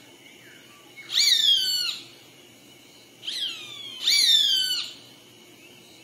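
Roadside hawk calling: three falling screams of about a second each, the second fainter and running straight into the third.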